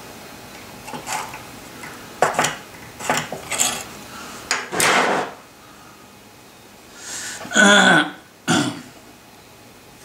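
Small steel bar pieces being handled on a workbench: short knocks and scrapes as they are picked up, slid and set down, with a scriber scratching along the metal. The loudest sound is a drawn-out scrape with a wavering pitch about three quarters of the way in.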